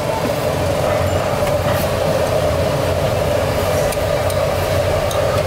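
A steady, loud mechanical drone with a low rumble, with a few light clinks over it.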